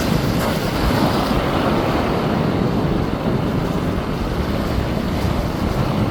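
Steady rush of ocean surf against the rocks, with wind rumbling on the microphone.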